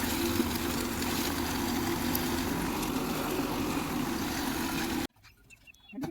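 An engine running steadily at a constant speed, with a steady hum, stopping abruptly about five seconds in.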